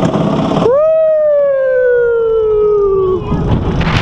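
A long howl that rises at first and then slides slowly down in pitch for about two and a half seconds, over the low rumble of the roller coaster car. Before it, for about half a second, the car's wheels rattle and clatter on the track.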